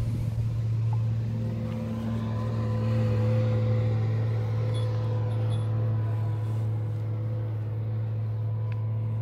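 A steady, low machine hum with a constant pitch.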